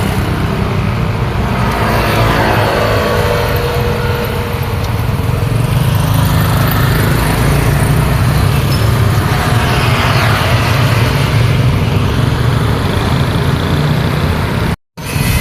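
Busy road traffic: a steady low engine rumble from cars and motorcycles, with vehicles going by about two seconds in and again about ten seconds in. The sound cuts out completely for a moment near the end.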